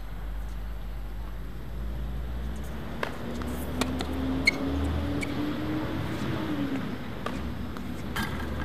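Tennis ball struck by racquets and bouncing on a hard court during a rally: a series of sharp pops, the loudest about four and a half seconds in, over a steady low hum.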